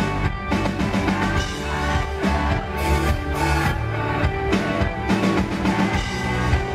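A live rock band playing with a line of taiko drums, the heavy drum strikes coming through the music again and again, along with electric guitar.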